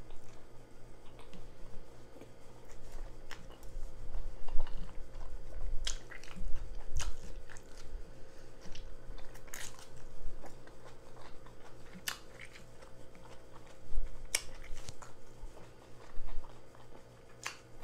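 Close-miked eating sounds: chewing a jalapeño cheddar sausage in a bun, with wet lip smacks and sharp clicks from licking sauce off fingers every second or two.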